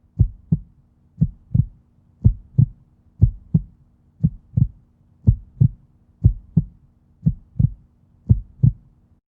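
Heartbeat sound effect: pairs of low thumps, about one pair a second, nine pairs in all, over a faint steady hum.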